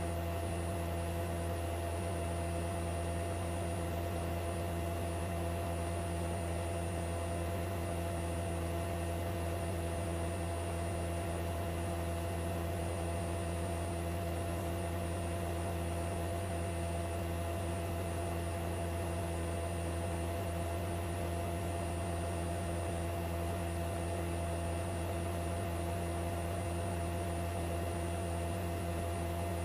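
Steady drone of a helicopter's engine and rotor heard from inside the aircraft: a constant low hum with several fixed tones over an even hiss, unchanging throughout.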